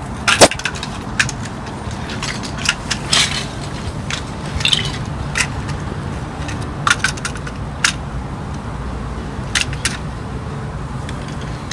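Plastic Lego bricks and toy vehicles clicking and knocking as they are handled and pressed together, in irregular sharp clicks, the loudest about half a second in, over a steady low hum.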